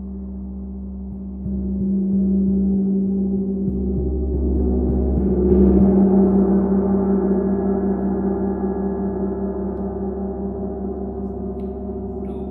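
Large Chao gong played with a padded mallet in soft repeated strokes: its ringing swells from about a second and a half in to a peak around six seconds, then rings on and slowly fades.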